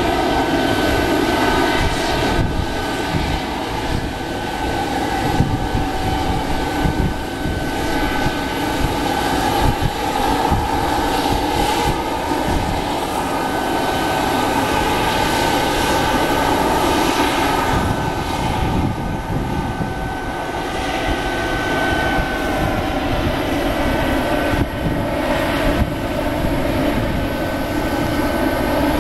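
Boeing 767 freighter's jet engines running with a steady whine over a rushing roar, holding level throughout, with wind buffeting the microphone.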